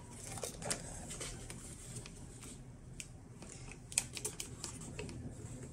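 Faint scattered clicks and light rustling of hands handling a plastic propeller and rubber band, fitting the propeller onto the nose motor of a foam flying-wing model.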